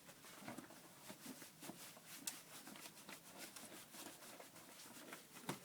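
Near silence in a small room, with faint scattered taps and rustles.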